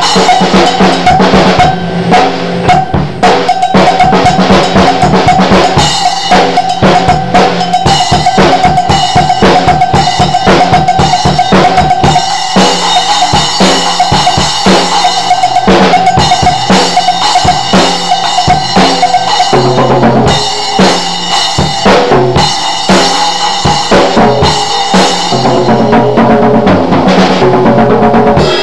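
Mapex drum kit played freestyle, loud: fast, dense bass drum and snare strikes with cymbals washing over them and a drum ringing on steadily beneath the hits.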